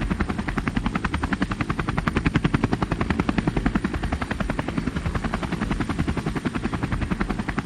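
Army helicopter flying at a steady speed: its rotor blades chop in a rapid, even beat over a continuous engine and rotor rumble.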